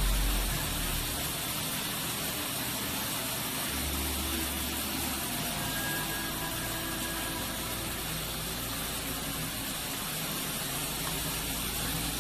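Heavy artificial rain from an indoor rain-test rig pouring over a Toyota Camry's roof, sunroof and windshield, heard from inside the cabin as a steady hiss with a low rumble underneath, during a water-leak test.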